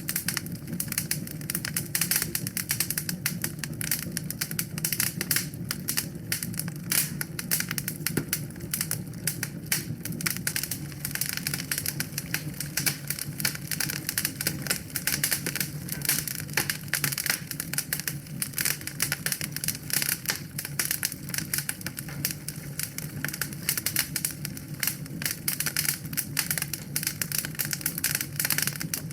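Wood fire in a fireplace crackling steadily, a dense run of sharp pops and snaps over a low, even rumble of the flames.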